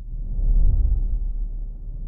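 Low, muffled rumbling whoosh that swells and fades, a sound effect under an animated logo intro; it dips at the start and swells again about half a second in.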